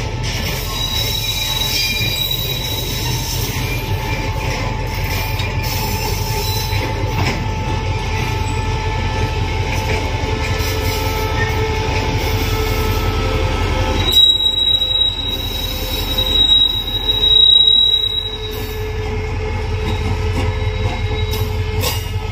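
A slow freight train of tank wagons hauled by an SRT CSR CDA5B1 diesel-electric locomotive rolls past close by, its diesel engine humming steadily and its wheels squealing on the rails. A few seconds past the middle, a louder, high-pitched wheel squeal rises and falls several times.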